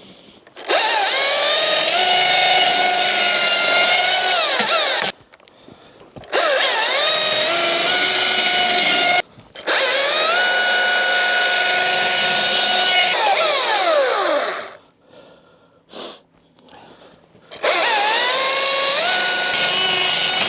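Chainsaw cutting into 2x8 lumber in four short runs. Each run opens with a rising whine, holds a steady pitch through the cut, and winds down, with near-quiet pauses between runs.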